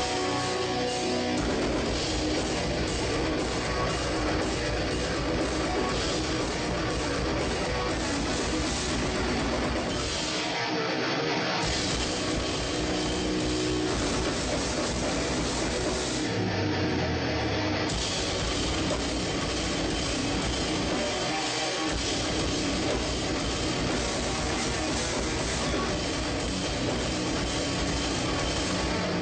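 Metalcore band playing live: heavy distorted guitars over a drum kit. The low end drops out briefly about ten seconds in and again around seventeen seconds.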